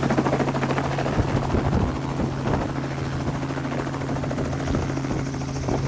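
Robinson R44 helicopter hovering low over grass and setting down: a steady rapid rotor chop over the engine's even drone.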